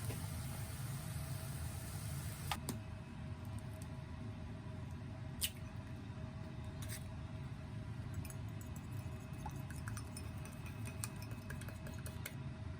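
A steady low hum with a faint constant tone, broken by a few sharp clicks about two and a half, five and a half and seven seconds in, and lighter ticks after that.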